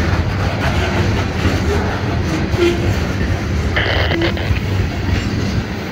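Freight train's covered hopper cars rolling past close by: a steady rumble of steel wheels on rail, with a brief higher-pitched screech about four seconds in.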